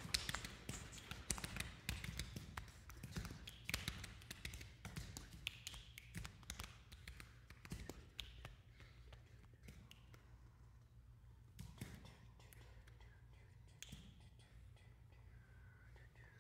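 Three vocalists making quiet mouth clicks and taps with breathy, whispered sounds, in an extended-technique vocal piece. The clicks are dense at first and thin out after about ten seconds, and faint high gliding tones come in near the end.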